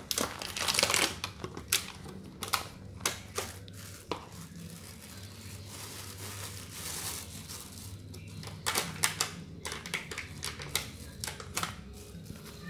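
Thin plastic bag rustling and crinkling, with the irregular clicks and scrapes of a metal spoon scooping coarse pecel peanut-chili paste inside it. A faint steady low hum runs underneath.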